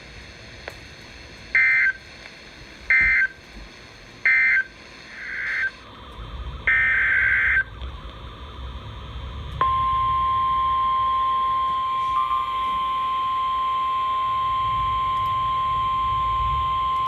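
Emergency Alert System SAME data bursts on NOAA Weather Radio: three short, harsh digital bursts about a second and a half apart, the end-of-message code closing one warning. A longer header burst then opens the next warning. About two seconds later the steady single-tone 1050 Hz weather radio warning alarm starts and holds.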